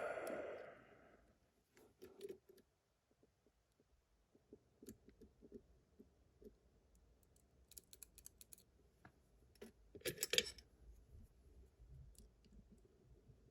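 Faint, scattered small metallic clicks and scrapes of lock-picking tools working inside a Miwa magnetic cam lock, with a louder cluster of clicks about ten seconds in.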